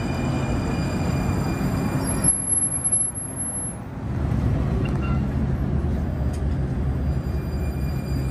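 Valley Metro light rail train rolling into the station past the platform: a steady low rumble of wheels on the rails with a thin high electric whine. The sound drops off for a second or so near the middle, then the rumble of the passing cars returns.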